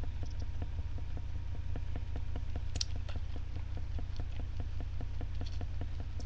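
Steady low hum with faint, fast, regular ticking, about six or seven ticks a second, and a couple of small clicks.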